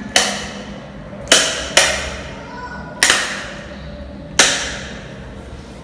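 Five sharp knocks or slaps at irregular intervals, each followed by a short echo off the bare tiled walls and floor of an empty room.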